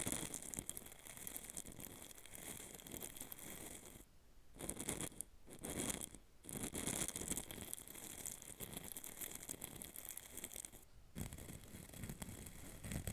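Rapid, fine scratching or brushing of a tool over the surface of a small hard capsule. It stops briefly a few times and then carries on.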